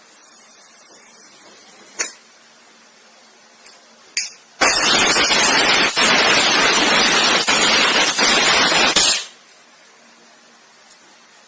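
A sharp click, then a loud rushing hiss of escaping gas lasting about four and a half seconds that cuts off suddenly.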